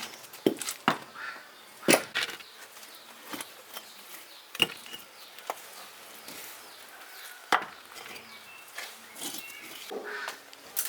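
Irregular sharp clinks and knocks of hand tools on the machine's metal parts during repair work, a strike every second or two over a quiet background.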